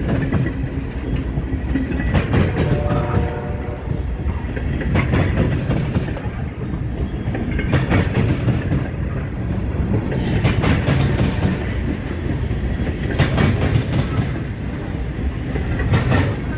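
Freight train of tank cars rolling past close by: a steady low rumble, with the wheels clacking over rail joints in clusters every two to three seconds.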